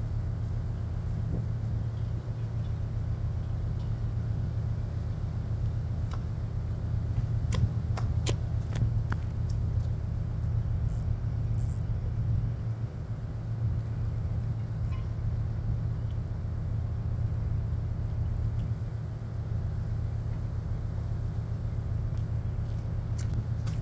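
Steady low mechanical hum of a refrigerated shipping container's refrigeration unit running, with a few faint clicks about seven to nine seconds in.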